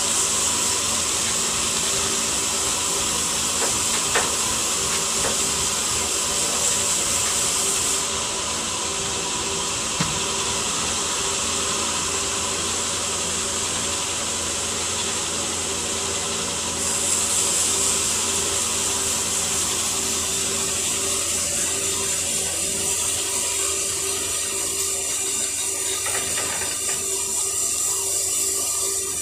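ACE mobile crane's diesel engine and hydraulics running steadily while it holds a large log on its hook, a steady hum with a high hiss that drops out from about eight seconds in until about seventeen seconds.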